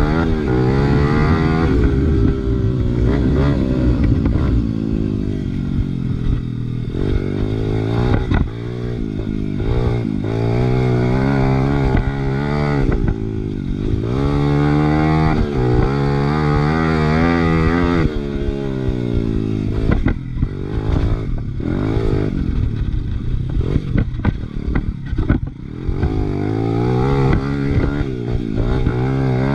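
Big-bore Honda XR100R's four-stroke single-cylinder engine being ridden hard, its pitch climbing under throttle and dropping back every few seconds. Short knocks and rattles come through over it.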